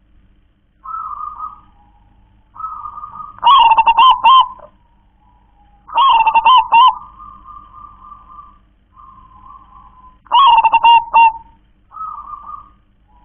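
Zebra dove cooing: three loud, rippling bursts of quick staccato coos about a second long each, with softer single coos between them.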